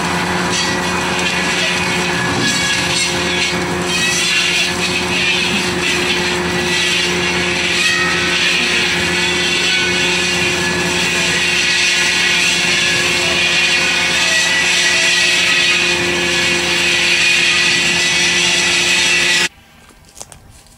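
Powered cutting machine running steadily as it cuts sicklebush, with a constant engine note under a noisy cutting hiss. It stops abruptly near the end.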